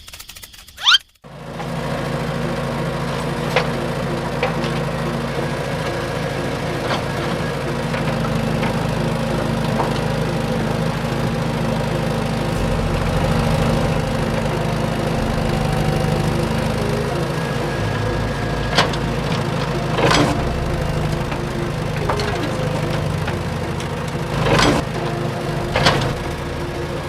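A small motor running steadily, its pitch shifting a couple of times, with scattered sharp clicks and knocks.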